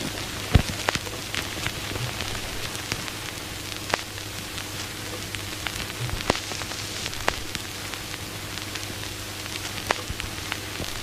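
Steady crackling hiss full of scattered sharp pops and clicks, with a low steady hum underneath.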